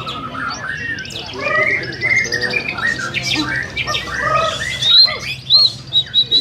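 Several caged white-rumped shamas (murai batu) singing at once in a songbird contest: a dense tangle of varied whistles, quick repeated notes and sharp high calls.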